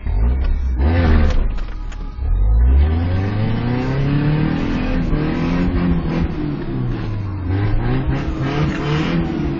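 Toyota truck engine revving hard, its pitch rising and falling several times, as the driver tries to power the truck out of a hole in deep snow, heard from inside the cab.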